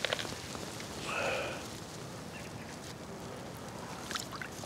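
Quiet waterside outdoor ambience with a single short bird call about a second in, and a few faint clicks near the start and near the end.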